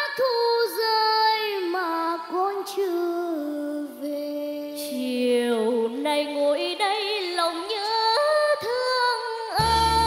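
Children singing a slow Vietnamese song with vibrato, first a boy's voice and then a girl's, over sparse accompaniment. A fuller band backing with bass comes in near the end.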